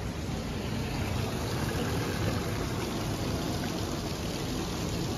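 Steady rushing of churning water in a canal lock chamber, white water stirred up against the lock gates.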